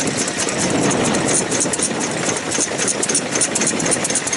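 Daikin CD 4-horsepower single-cylinder vintage stationary engine running steadily, with a rapid, even clatter of ticks.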